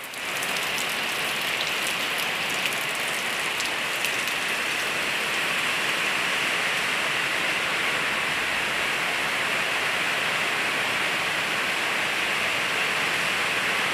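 Heavy rain falling steadily, a dense even hiss, with a few sharper drop ticks in the first few seconds.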